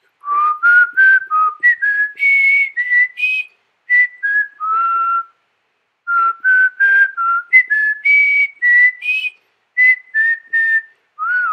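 Background music with a whistled melody: a run of short notes stepping up and down, each with a light click at its start, and a brief pause about five seconds in.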